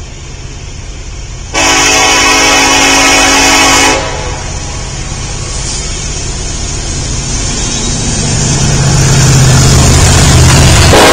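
BNSF diesel freight locomotive approaching: one long horn blast of about two and a half seconds, then its engine rumble and wheel noise grow steadily louder as it draws up and passes close.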